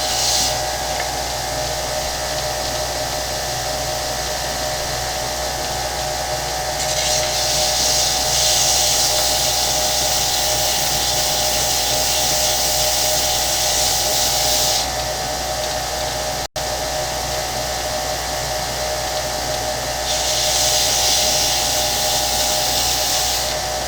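Large oscillating belt sander running steadily with a constant motor hum. A workpiece is pressed to the belt twice, adding a loud hissing rasp for about eight seconds from about seven seconds in and again for a few seconds near the end.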